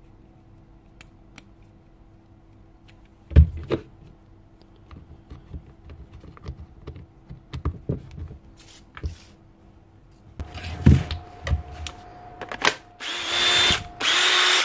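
Clicks and knocks of plastic parts being handled as a Makita BHP451 cordless drill's housing is put back together. Near the end the drill's motor runs at speed with a steady high whine, running again after the brush and armature repair.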